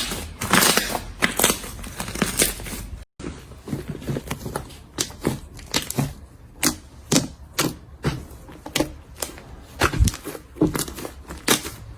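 Slime being pressed and worked by hand, giving irregular sticky pops and crackling clicks, several a second. About three seconds in the sound cuts out for an instant before the clicking resumes.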